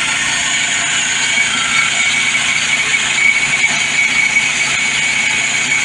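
Portable bandsaw sawmill's gas engine running steadily at speed with a steady high whine as the band blade saws through a large pine log.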